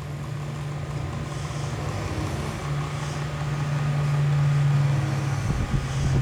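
Miyako mini electric fan running: a steady low motor hum under a broad rush of air. A few low thumps sound near the end.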